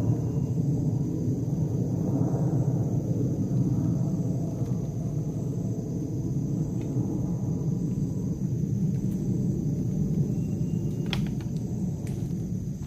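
Low rumble of an aeroplane passing high overhead, slowly fading away, with a single sharp click near the end.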